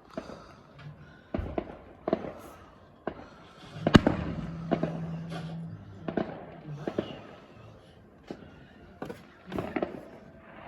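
Fireworks going off: a run of sharp bangs at irregular intervals, the loudest about four seconds in with a drawn-out tail after it.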